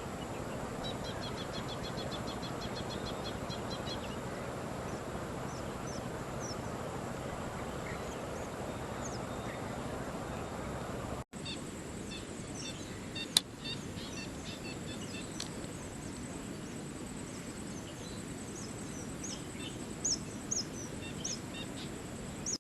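Wild birds calling over a steady outdoor hiss. In the first few seconds a rapid, repeated high call is heard. After a brief dropout about halfway, scattered short high chirps follow, along with one sharp click.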